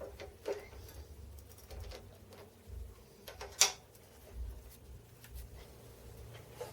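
Light, scattered clicks and knocks of small metal parts being handled at a drill press, with one sharper click about three and a half seconds in, over a faint low hum.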